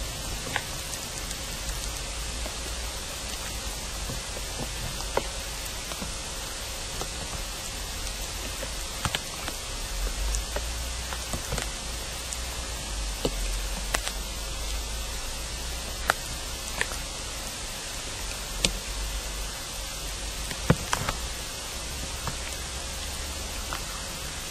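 Steady hiss with scattered sharp clicks and ticks, a faint steady hum and a low rumble underneath: the amplified feed of a device listening into the ground.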